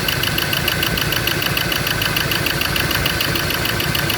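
Ford Ranger diesel engine idling with a steady, rapid ticking, firing on only two cylinders because no electrical pulse is reaching the number 1 and 2 injectors.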